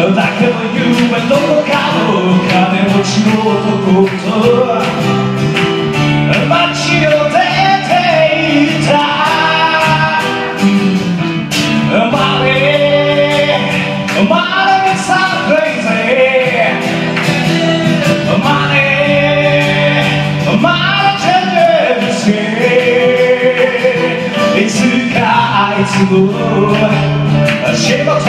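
Live band music: a man singing over acoustic guitar and keyboard accompaniment.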